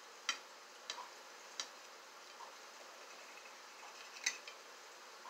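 Metal fork clicking against a plate while eating: four sharp clicks, the loudest near the end.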